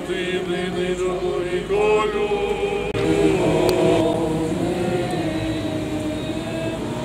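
A group of voices singing a slow Orthodox memorial chant of a panakhyda in held notes, with a brief break about three seconds in.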